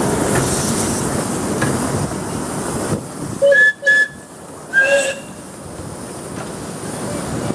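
Miniature steam locomotives passing each other on parallel tracks, their running noise steady, with a steam whistle giving three short two-note toots about halfway through: two close together, then one more.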